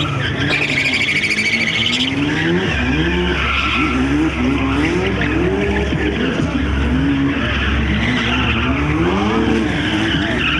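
Two drift cars sliding in tandem: the engines rev up and fall back over and over while the tyres squeal and hiss on the asphalt. A deeper engine rumble joins about three seconds in.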